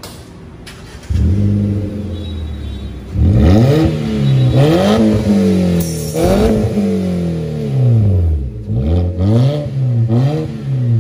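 Car engine running with its original rear muffler removed, exhausting through the bare pipe. It comes in about a second in and runs steadily, then is revved about six times, the pitch rising and falling with each blip.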